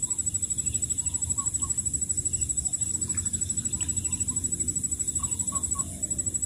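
Insects droning steadily at a high pitch, pulsing at about a dozen beats a second, with a few short faint chirps around five seconds in.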